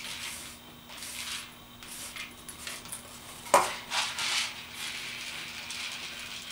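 Dry rice poured from a styrofoam cup into a glass jar, the grains trickling onto the glass in short, uneven pours. A single sharp knock sounds about three and a half seconds in.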